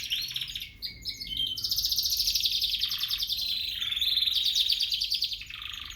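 Domestic canary singing: rolling trills of rapidly repeated high notes. There is a short break about a second in, then a long unbroken trill that stops just before the end.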